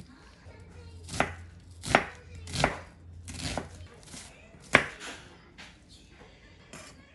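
Kitchen knife chopping on a cutting board: a run of six or so sharp chops, roughly one every 0.7 seconds, the loudest about two-thirds through, then a few lighter taps.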